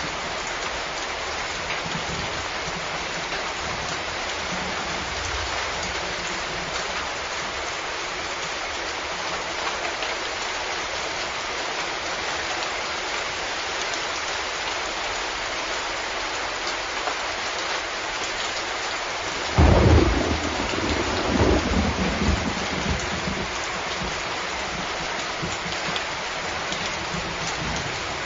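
Steady rain falling, a constant hiss. About two-thirds of the way through comes a sudden thunderclap, then a few seconds of rolling rumble.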